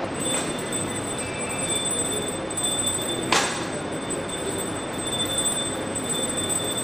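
Small brass puja hand bell rung steadily during the ritual, a high continuous ringing, with one sharp click a little past the middle.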